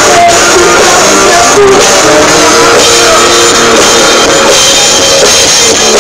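Live rock band playing loud: drum kit and electric guitars.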